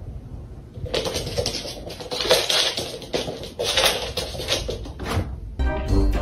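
Cat's paws scrabbling and pattering on a hard floor while chasing a laser dot: irregular, quick scuffling. Near the end, upbeat brass music starts.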